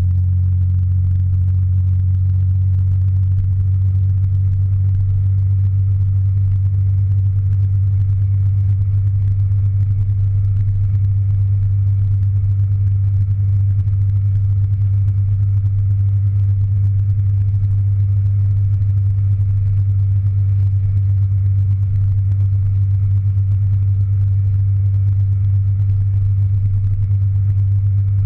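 Steady, muffled low rumble of a motor scooter cruising along a road, heard through a GoPro's housing: engine and wind noise blended, with no change in pace.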